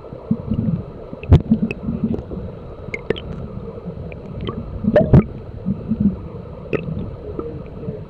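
Muffled gurgling and churning of river water picked up by a submerged camera, with a few small clicks and two sharp knocks, about a second and a half in and about five seconds in.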